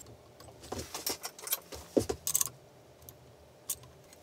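Light metallic clicks and clinks from a small open-end spanner and brass hot-end parts being handled at a 3D printer's heater block. Most come in the first two and a half seconds, the loudest about two seconds in, with one more click near the end.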